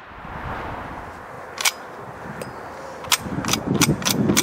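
A single sharp shot from an 1860 Henry lever-action rifle about a second and a half in, then a quick run of sharp clicks and knocks near the end.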